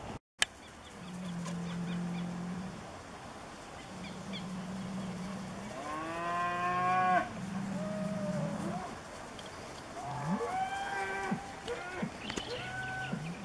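Cattle mooing repeatedly: several low, drawn-out moos, a louder, higher moo about six seconds in, and a string of shorter rising calls near the end. A sharp click right at the start.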